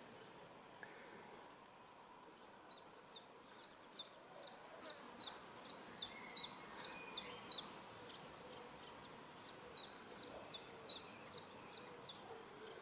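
Common kestrel calling a rapid kee-kee-kee: sharp, high, down-slurred notes at about three a second, in two runs with a short pause between them.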